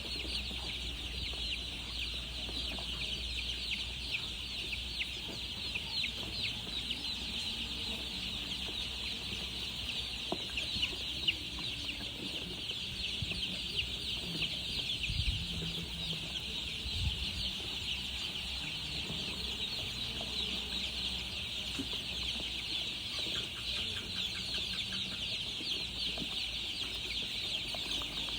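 A flock of baby chicks peeping nonstop, many high cheeps overlapping.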